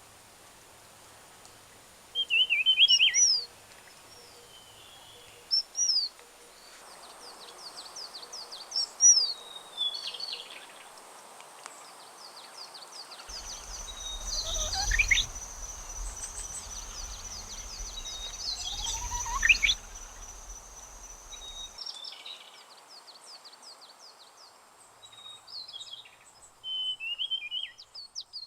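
Wild mountain birds calling: short, high chirps and trills throughout, with two long whistles falling steeply in pitch about 15 and 19 seconds in. A steady high-pitched tone and a low rumble run through the middle stretch.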